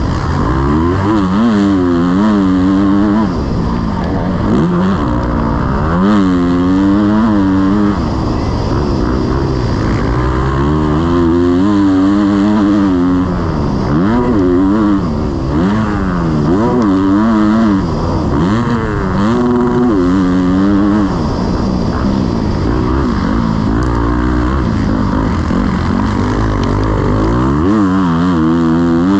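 Motocross bike engine revving up and backing off again and again, its pitch climbing and dropping every second or two.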